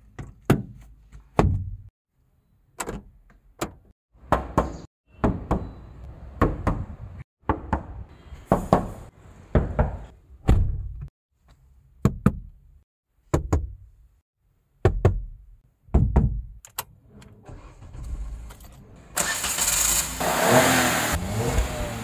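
Cabin fittings of a 2022 Maruti Suzuki Alto K10 worked by hand: the sun visor and glovebox are snapped open and shut in a string of sharp clicks and thuds. About nineteen seconds in, the car's engine starts and runs.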